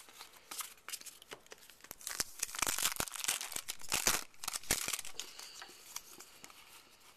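Crinkling and tearing of a foil trading-card pack wrapper being opened and handled: a run of sharp crackles, densest from about two to four and a half seconds in.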